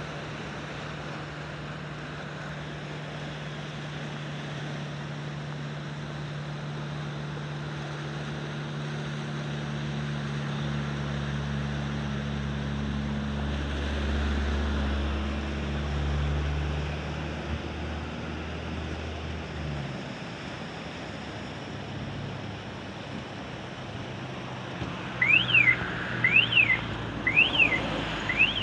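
Sea surf and wind hissing steadily, with a low motor hum that swells and then fades out past the middle. Near the end come about five quick high whistled chirps, each rising and falling in pitch, roughly one a second.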